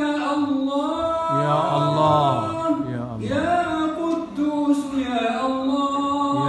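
A man chanting an Arabic supplication (du'a) in a drawn-out melodic voice through a microphone and loudspeaker, holding long notes with short breaks between phrases.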